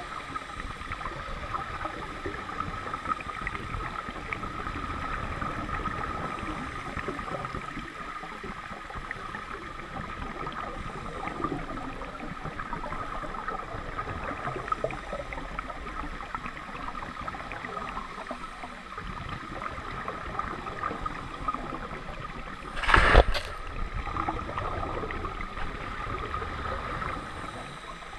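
Underwater lake ambience picked up by a submerged camera: a steady hiss with a faint steady hum. One sudden loud rush breaks in briefly about three-quarters of the way through.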